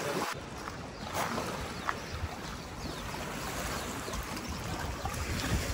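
Steady summer rain falling, an even hiss with a few louder drops ticking out of it.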